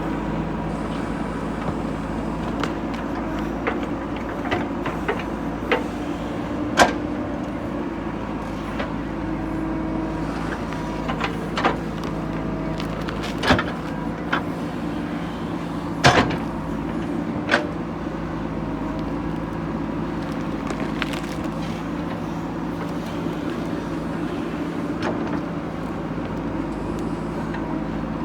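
JCB 3DX backhoe loader's diesel engine running steadily while it digs, with sharp metallic knocks and clanks every few seconds, the loudest about a quarter of the way and a little past halfway through.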